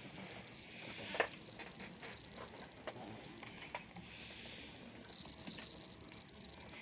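Faint handling noise: scattered light clicks and scratching, with one sharper click about a second in, over a steady faint high whine.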